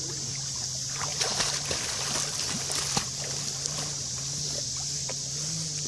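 Two dogs paddling and splashing through lake water, with a cluster of small splashes between about one and three and a half seconds in. A steady high hiss and a low hum run underneath.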